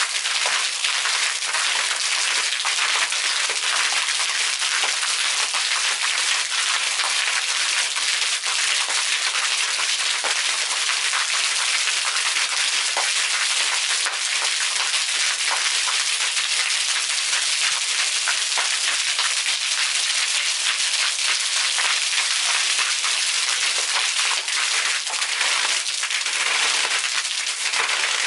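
Water from submersible arching fountain jets splashing down onto a concrete deck and into a pool: a steady hiss of falling water dotted with many small splashes.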